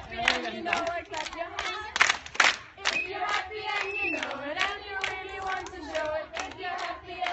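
A group of schoolchildren singing and chanting together, with sharp hand claps scattered through it.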